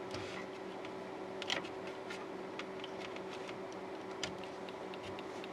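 Faint, irregular small ticks and clicks, about two a second, over a steady low hum, as a power plug and cable are handled and pushed into an opened LCD monitor.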